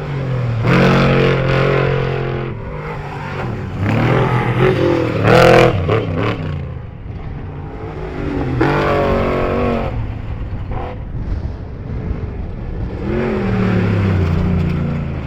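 Off-road race vehicles running past one after another, about four surges of engine noise, each engine revving up in pitch through its gears; the loudest comes about five seconds in.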